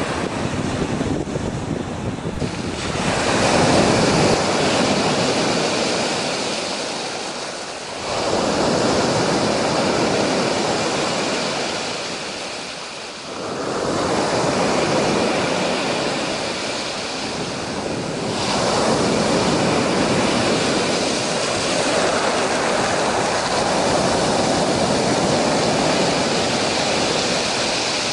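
Black Sea surf breaking on the shore, the noise of each wave swelling and washing back about every five seconds, then a steadier wash near the end.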